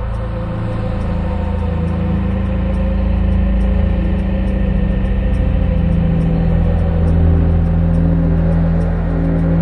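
Ambient electronic soundtrack music: a low, sustained rumbling drone made of several held tones, slowly growing louder over the first few seconds.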